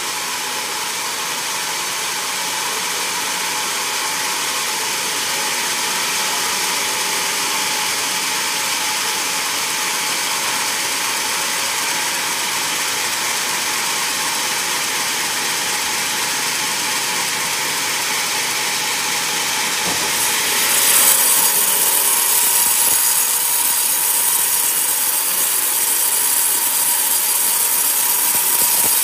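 Sawmill band saw running and cutting through a coconut log: a steady hiss with a constant whine. About 20 seconds in it grows louder and harsher as the blade bites into fresh wood.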